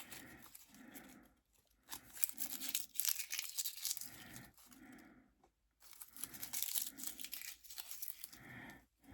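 Dry leaf litter being scrunched up in the hands, crackling and crinkling in irregular bursts, with short pauses about one and a half seconds in and again after five seconds.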